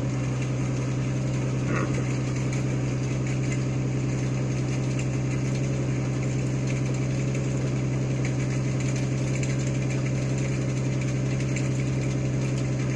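An engine running at a steady, unchanging speed: an even low drone with a fast mechanical clatter over it.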